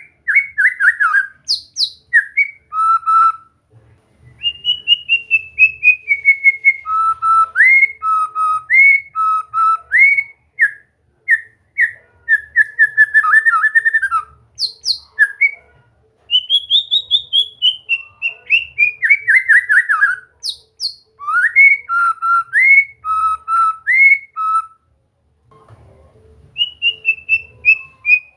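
White-rumped shama singing: rapid runs of clear, loud whistled notes, some rising and some falling, in phrases broken by a few short pauses.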